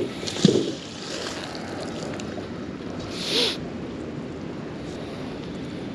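Wind buffeting the microphone over fast-flowing river water lapping at a small boat, a steady noisy rush. A light knock comes near the start, and a short louder hiss about three seconds in.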